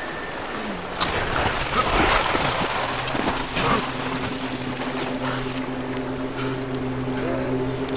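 Water splashing as a person struggles through a river current. About three seconds in, a low, steady music drone comes in and continues.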